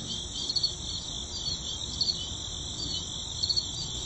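Crickets chirping: a steady, high-pitched chirring.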